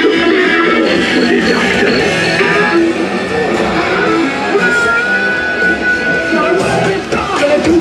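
Loud rock music with strummed electric guitar, played from an illuminated carnival cart's sound system, with a long held high note about halfway through.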